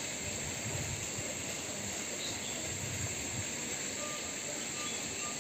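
Steady high-pitched drone of insects in outdoor greenery, with a soft low rumble through the first few seconds.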